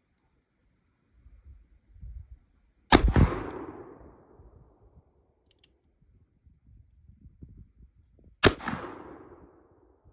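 Two shots from a Remington 1858 New Model Army cap-and-ball black powder revolver, about five and a half seconds apart, each a sharp bang followed by a fading echo.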